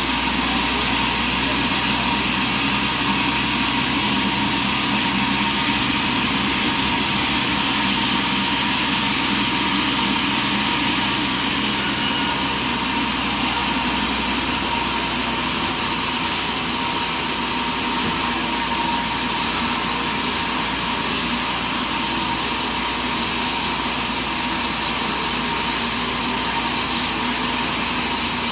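Sawmill running steadily: engine and saw making a constant mechanical noise with a thin, steady whine over it.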